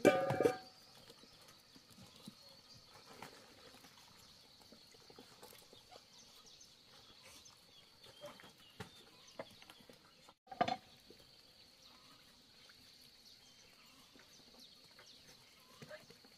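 Two short farm-animal calls, one at the very start and one about ten and a half seconds in, over a faint steady high-pitched tone and scattered soft clicks.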